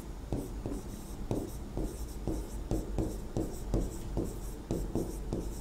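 Stylus scratching and tapping on the glass of an interactive display as a word is handwritten: a run of short strokes, about two or three a second.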